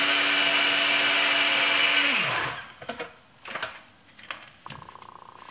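Duronic personal blender's motor running steadily with a high whine, blending a protein shake, then spinning down and stopping a little over two seconds in. A few light clicks and knocks follow as the blending bottle is lifted off the base.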